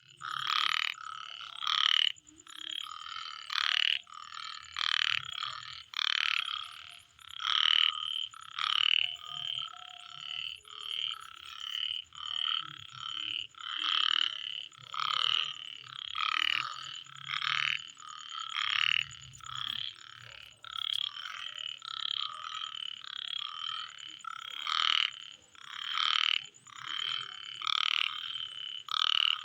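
Night chorus of frogs croaking in overlapping calls, roughly one a second, over a thin, steady, high insect trill.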